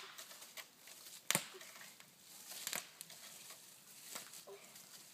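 Thin dead tree cracking and snapping as it is pushed over: one sharp crack about a second in, then two weaker snaps, with light crackling of dry wood and leaves between.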